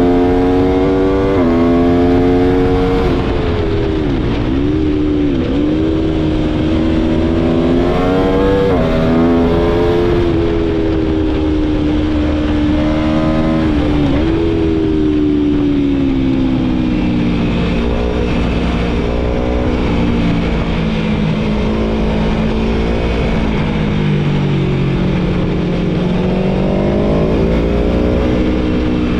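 Aprilia Tuono V4's V4 engine heard from onboard, revving up and down as the bike accelerates, shifts gears and rolls off. The engine note rises, then drops sharply twice. It falls slowly for a long stretch and climbs again near the end.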